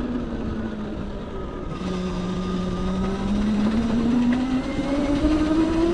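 Electric bike's motor whining as it rides, the pitch dipping slightly then rising steadily over the last few seconds as it speeds up, over a steady low rumble.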